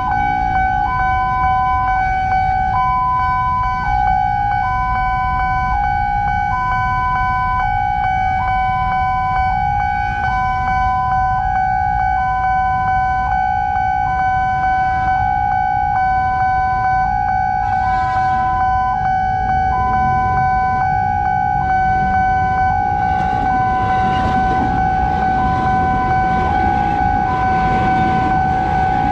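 Railway level-crossing warning alarm sounding continuously: a steady electronic tone with a second tone stepping up and down about once a second, signalling that a train is approaching. In the last few seconds a commuter electric train's rumble and wheel clatter build up under it as the train passes.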